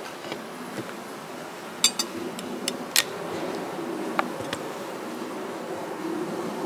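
Honeybees buzzing steadily around an opened hive, with a handful of sharp clinks and knocks as a glass feeder jar is handled: a quick cluster about two to three seconds in and two more near four seconds.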